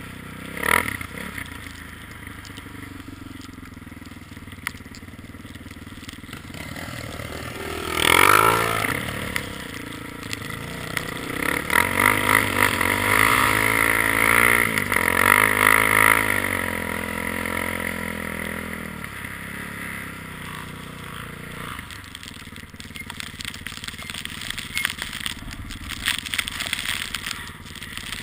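ATV engine running while riding, the revs rising and falling: a sharp burst of revs about eight seconds in, then a stretch of varying throttle, before it settles to a steadier, quieter run.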